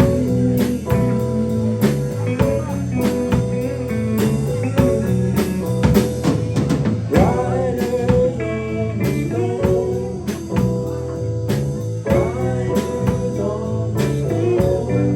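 Live band playing an instrumental passage of a slow blues-rock song: electric guitar and sustained notes over a drum kit keeping a steady beat, with a bending lead line about halfway through.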